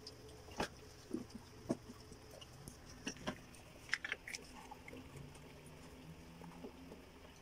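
Belgian Malinois mother licking and nibbling her newborn puppy, making scattered wet clicks and smacks, a few at a time, most of them in the first half.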